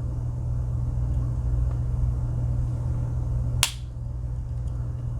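One sharp click about three and a half seconds in, a few faint ticks around it, over a steady low hum. The click fits a Swiss Army knife tool snapping shut on its backspring.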